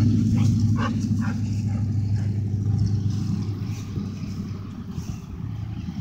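A road vehicle's engine running as a low steady drone that fades away over about five seconds as it drives off. A few light clicks come in the first second or so.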